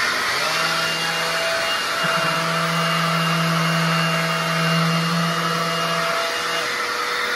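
Small shop vac running steadily, drawing through a PVC-pipe adapter fitted to a DeWalt orbital sander's dust port. A lower steady hum joins about half a second in and stops shortly before the end.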